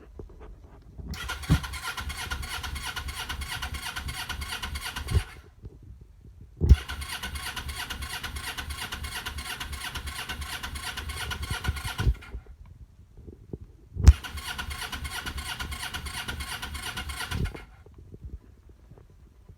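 Electric starter cranking the 2007 Suzuki GS500F's parallel-twin engine in three attempts of about four, five and three seconds. Each starts with a click, then a steady whine over a rhythmic chugging. The engine never catches: the bike stalled on the road and will not start.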